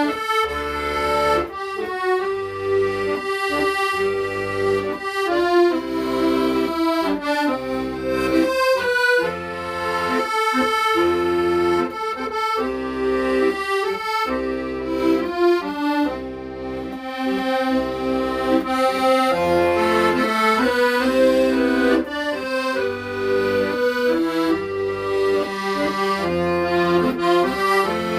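Accordion playing a slow, sentimental melody in held chords, with a bass line pulsing steadily underneath.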